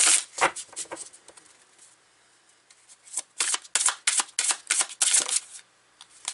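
A deck of tarot cards being shuffled by hand: a short burst of shuffling at the start, a pause, then a run of quick shuffling strokes from about three seconds in to about five and a half seconds.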